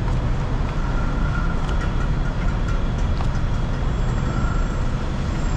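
Steady street traffic noise, a low rumble of passing vehicles.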